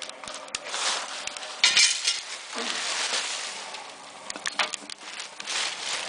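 Metal tongs clinking and scraping against metal cans as red-hot raku pottery is handled, with a loud rushing hiss about two seconds in and further bursts of hissing and crackling.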